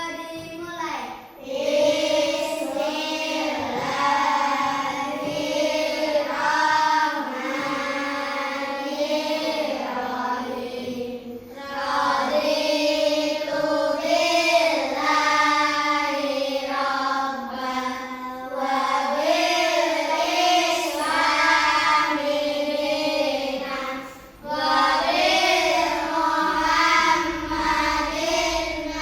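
Children singing a song together in unison, phrase by phrase with short breaths between lines.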